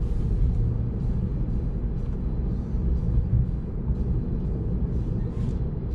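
Road and tyre noise inside the cabin of a moving Tesla Model 3, an electric car with no engine sound: a steady low rumble.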